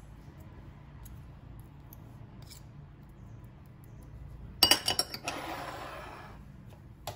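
A metal butter spreader faintly scrapes crumbly milk-butter spread across thick toast. About four and a half seconds in comes a sharp clatter of metal on ceramic as the spreader is put down, then a short sliding scrape that fades.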